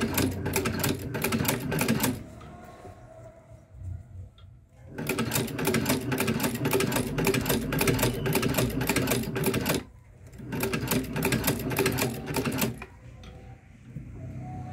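Long-arm shoe patcher sewing machine stitching through the fabric of a bag handle: rapid, even clicking of the needle and feed in three runs of stitches. It stops briefly after about two seconds, again just before ten seconds, and near the end.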